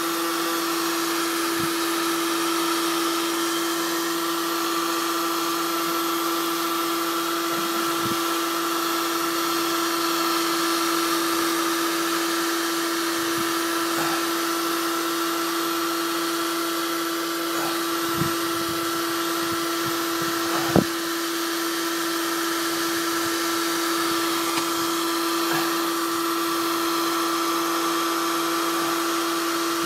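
Black & Decker KX1600 1400 W heat gun running steadily: a constant fan-motor hum and whine over the hiss of blown air. A brief sharp click about two-thirds of the way through stands out above it.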